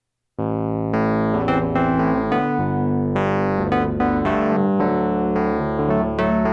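Background music: electric piano or synthesizer keyboard playing struck notes that ring and fade, starting about half a second in.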